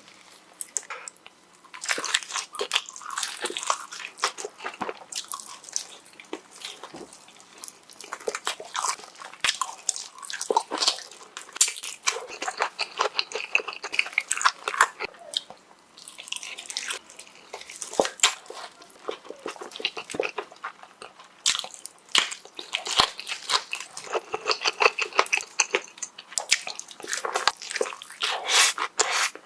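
Close-miked eating sounds: biting and chewing with wet smacking and some crunching, a dense run of small clicks with a brief lull about sixteen seconds in.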